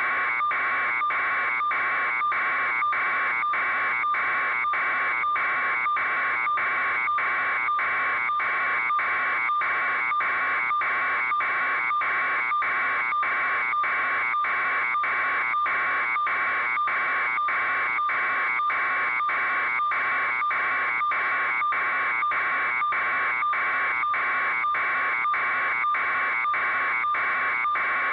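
Electronic alarm buzzer sounding continuously, a harsh buzz that pulses evenly about twice a second.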